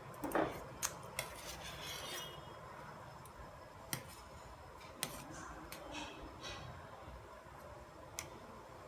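Scattered light clicks, taps and clinks of kitchen utensils and dishes handled during food preparation, about a dozen spread irregularly, one near two seconds in leaving a short ringing note.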